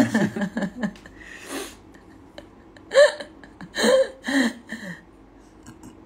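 People laughing: a string of short laughs at the start, a breathy intake about a second and a half in, then a few short, gasping laugh bursts around three to four and a half seconds in.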